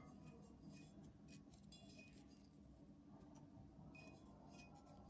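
Near silence, with faint scattered clicks of whole spices and fingertips touching the inside of a brass mortar as the spices are picked through by hand.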